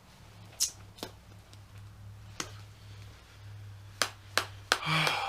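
Scattered sharp clicks and taps from a can of dip being handled, about seven of them, with a brief rustle near the end.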